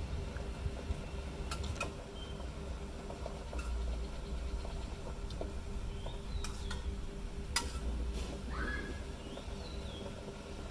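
Metal spoon clinking and scraping against a stainless steel pot of soup, a handful of separate sharp clinks over a steady low hum, with a few faint high chirps in between.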